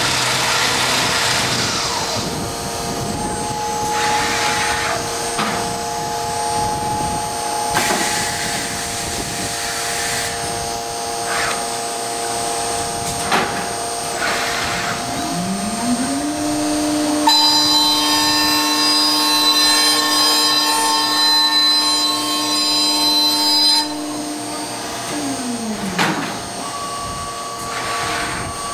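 Weeke Optimat BHC Venture 2.5 CNC machining center running: a steady machine hum with scattered clicks and short hisses. About halfway through, a motor spins up with a rising whine and runs with a high whine for several seconds, then winds back down a couple of seconds before the end.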